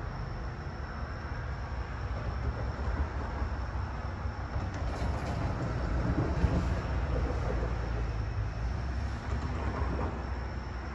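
A train going by: a rumble that swells over a few seconds, is loudest in the middle, then eases off.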